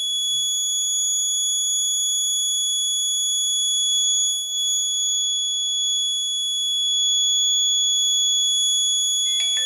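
Alarm buzzer on an Arduino railway-track crack-detection robot sounding one steady, high-pitched continuous tone: the alarm that comes on when the ultrasonic sensor has detected a crack in the track.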